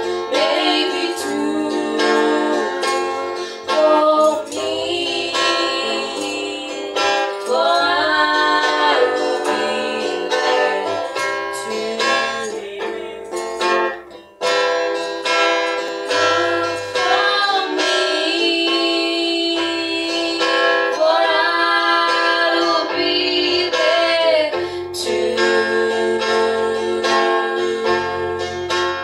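Two women singing a gospel song together into microphones, accompanied by a strummed guitar.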